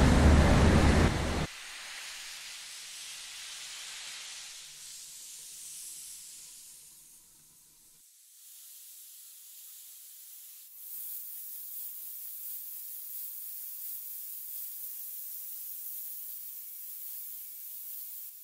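Dense loud noise with a deep rumble cuts off suddenly about a second and a half in, leaving a softer hiss that fades away. About eleven seconds in, a thin, high hiss comes in and holds steady.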